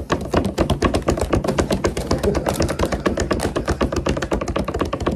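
Gift wrapping being handled and crinkled while a present is unwrapped: a dense, fast, irregular crackle close to the microphone.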